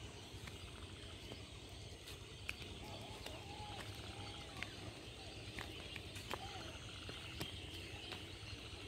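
Faint rural outdoor ambience: a steady low rumble with a high hiss of insects and birds, a few faint short calls about three to six seconds in, and a few light clicks.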